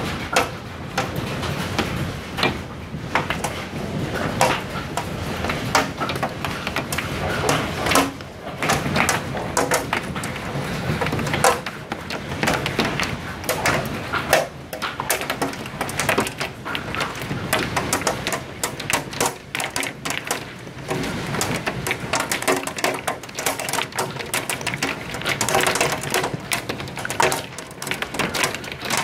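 Hail and heavy rain falling, a dense, irregular clatter of pellets striking hard surfaces over a steady wash of rain noise.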